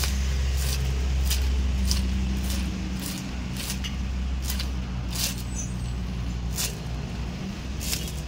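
Lawnmower motor running steadily with a low hum, with sharp ticks repeating about every two-thirds of a second.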